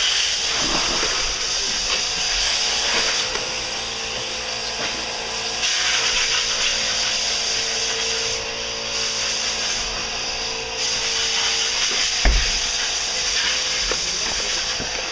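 Electric RC rock-crawler truck's motor and gears whirring under a constant hiss, rising and falling as it is driven over rocks, with a single knock about twelve seconds in.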